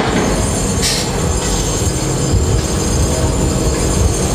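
Steady heavy rumble and rattle inside a tower crane's operator cab, with a brief hiss about a second in.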